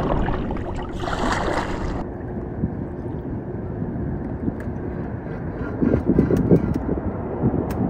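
Wind rumbling on the microphone over water lapping against a kayak's hull, with a short cluster of louder splashes and knocks about six to seven and a half seconds in.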